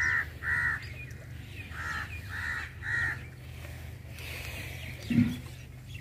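Crows cawing: short calls, two near the start and three more about two to three seconds in, over a steady low hum.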